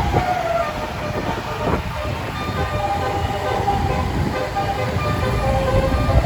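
Tour bus's basuri horn, a multi-tone 'telolet' air horn, playing a tune of held notes at several pitches, over the low rumble of the bus's engine.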